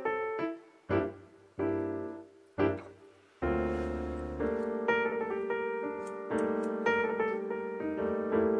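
Background piano music: a few separate struck notes and chords that ring and fade, moving into a fuller, steadier flow of notes about three and a half seconds in.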